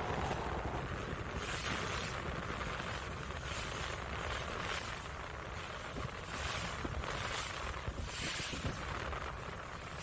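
Wind rushing over the microphone on the open deck of a moving ro-ro ferry, swelling every second or so, over the ship's low steady rumble and the wash of the sea.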